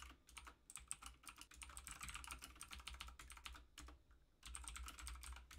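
Typing on a computer keyboard: a fast, uneven run of keystroke clicks, with a short pause about four seconds in before the typing resumes.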